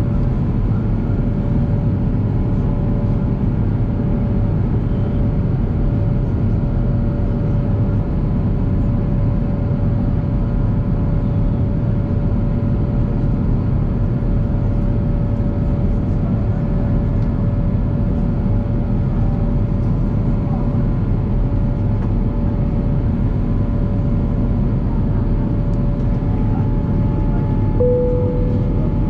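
Airbus A350-900's Rolls-Royce Trent XWB engines heard from inside the cabin in flight: a loud, steady low rumble with a thin steady whine over it. A short tone sounds near the end.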